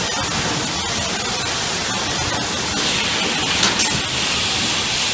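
Packing-line machinery noise in a factory hall: a loud, steady hiss. A higher hiss joins about three seconds in, with a short sharp burst of hiss just before four seconds.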